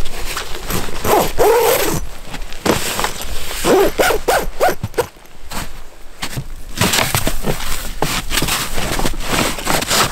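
Siberian huskies whining and yipping, about a second in and again around four seconds in, over the rustle and crunch of gear being handled on a wooden sled and steps in snow.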